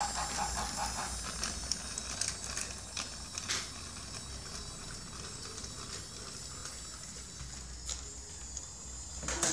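Battery-powered toy train's small electric motor running steadily as it rolls along a wooden track, with scattered short clicks and knocks.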